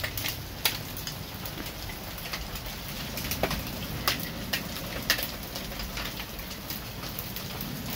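Hailstones falling with rain, striking in scattered sharp clicks over a steady hiss of rainfall.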